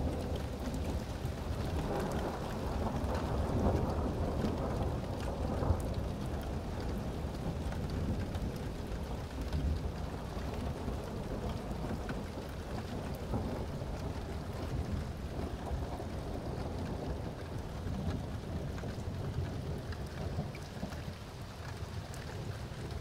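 Rain falling steadily with thunder rumbling low underneath; the rumble swells a couple of seconds in and then rolls on more quietly, with small ticks of drops throughout.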